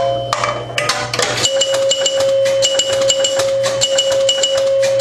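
1974 Bally Champ electromechanical pinball machine in play: rapid clicking of its relays, stepper units and switches, with a steady ringing tone and short higher tones repeating several times a second from about a second and a half in.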